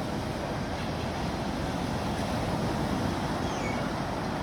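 Sea waves: a steady rush of surf, with the low roar of water and wind noise.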